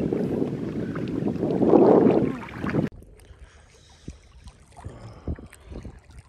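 Wind buffeting the microphone in a loud, rushing noise that cuts off suddenly about three seconds in, leaving a quiet stretch with a few faint clicks.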